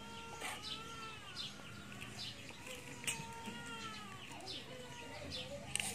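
Birds chirping: many short, high chirps repeating, with a few drawn-out calls that rise and fall in pitch over about a second each. A sharp click near the end.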